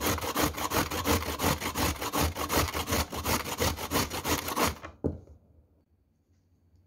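Carrot being grated on a stainless steel box grater: quick, even rasping strokes, several a second, that stop about five seconds in with a single knock.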